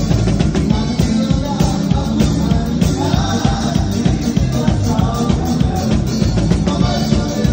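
A live band playing: drum kit, electric guitars and male voices singing into microphones, the singing coming in about three seconds in. The drums keep up a dense, steady beat.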